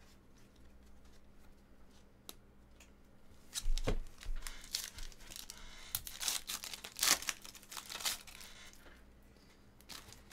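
Trading-card pack wrappers tearing and crinkling in a run of crackly bursts. It starts about three and a half seconds in and dies down shortly before the end.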